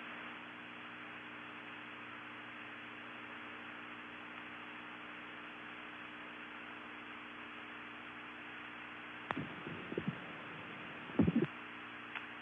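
Steady electrical hum and hiss of an open, narrow-band communications audio line with no one talking. A few short loud crackles come about nine and eleven seconds in.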